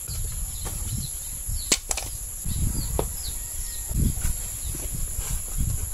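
Scattered dull thuds and a few sharp knocks from coconut halves being handled as the copra meat is worked out of the shells. Under them runs a steady high-pitched insect drone, with a few faint chirps.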